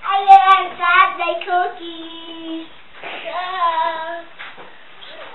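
A young child singing without clear words: a phrase of several notes ending on a held note, then a shorter second phrase about three seconds in.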